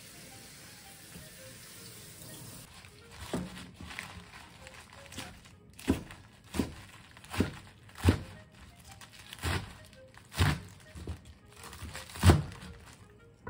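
Chef's knife cutting through a bunch of spinach and striking a wooden cutting board: about ten separate chops, starting about three seconds in, spaced roughly a second apart, the last one the loudest.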